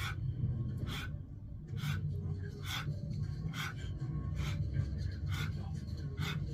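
A person breathing out sharply in a steady rhythm, a little more than once a second, one breath per push-up repetition. A television plays underneath.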